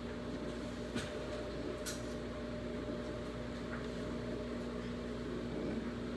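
Steady low hum from a fan or appliance running in a small kitchen, with a couple of faint clicks as a plastic sour cream tub is handled and opened.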